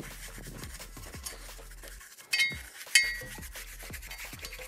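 Paintbrush stroking rust converter onto a steel rear axle beam: a steady, scratchy rubbing of bristles on metal. Two sharp metallic clinks ring out a little over two seconds and about three seconds in.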